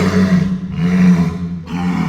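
A large animal's deep, rough calls, three in a row.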